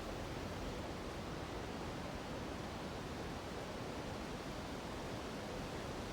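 Steady rushing of a mountain river blended with wind through the trees, an even hiss without gusts or breaks.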